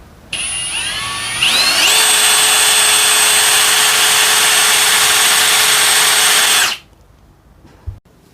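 Power drill spinning up, its motor whine climbing in pitch over the first second or so, then running at a steady speed for about five seconds before it stops abruptly. A single small click follows near the end.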